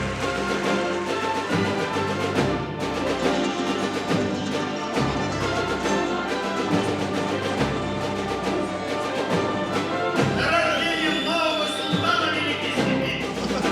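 Orchestral classical music: a full symphony orchestra playing a dense, sustained passage with occasional low drum strokes. A high, wavering melodic line enters about ten seconds in.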